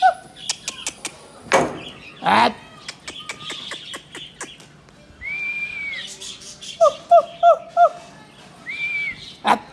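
An animal gives a quick run of five sharp calls, and a short held whistle sounds twice. Two louder knocks and scattered clicks come in the first few seconds.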